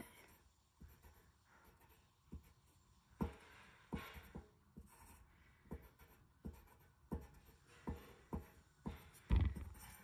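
Pencil scratching and ticking on paper as short strokes are drawn, about one tick every half second to second, with a louder low thump near the end.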